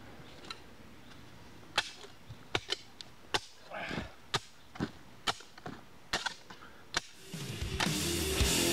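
A short-handled spade chopping into packed soil and roots: about a dozen sharp, irregular strikes. Rock music fades in near the end.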